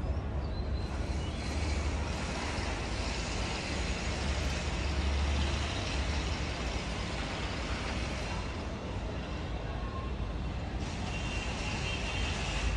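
City traffic noise: a steady low rumble, with a rushing hiss that swells for several seconds as a large vehicle goes by.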